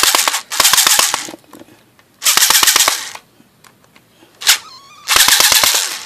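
Cordless power driver run in short bursts, five rapid rattling hammer runs of about a second each and one brief blip, as it works at a stubborn screw in a brass scrap piece that the bit cannot turn out.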